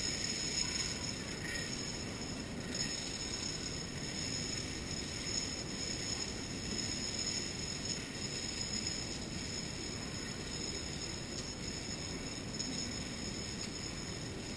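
Long chains of dominoes toppling one after another in a steady, rapid clatter as the domino binary adder runs.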